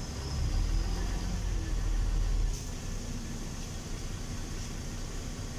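Interior of a LiAZ 5292.22 city bus on the move: a low engine and road rumble swells for about two seconds, then drops suddenly about two and a half seconds in, leaving a steadier, quieter drone and hiss.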